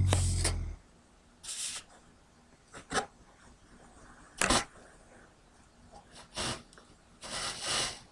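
Sleeping Labrador retriever mix dog snoring: a loud, low rumbling snore that ends about a second in, then several short, hissy breathing noises spaced a second or two apart.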